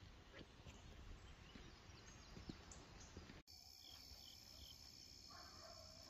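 Faint outdoor ambience with scattered small clicks and rustles. After an abrupt cut about three and a half seconds in, a steady high-pitched insect drone sets in, with a few short chirps over it and a run of short repeated calls near the end.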